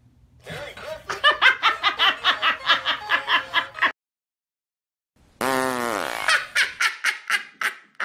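A person laughing in a run of rapid "ha-ha" bursts, starting about half a second in and stopping abruptly near four seconds. After a short break, a voice-like sound slides down in pitch and is followed by another run of quick bursts.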